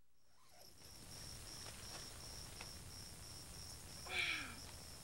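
Outdoor ambience fading in, carried by an insect chirring in steady, evenly spaced high pulses, about three a second. About four seconds in comes one brief, louder sound that falls in pitch.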